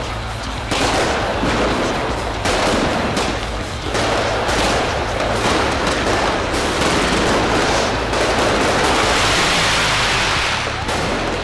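Fireworks and firecrackers going off in rapid, overlapping volleys of bangs and crackling, almost without a break, running together into a long dense stretch near the end.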